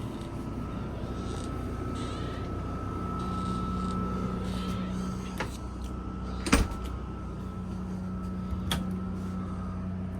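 Powered roof vent fan in a motorhome running with a steady whirring hum, its tone growing stronger about three seconds in. Three short sharp clicks or knocks cut through it, the loudest a little past the middle.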